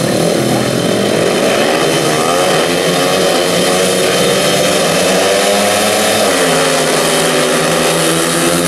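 Several 500 cc single-cylinder methanol speedway bike engines revving together at the start line, their pitches wavering up and down. Near the end they accelerate away off the start.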